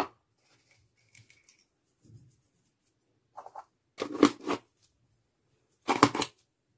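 A small sachet of vanilla sugar being opened: short, crisp rustling bursts, the loudest about four and six seconds in.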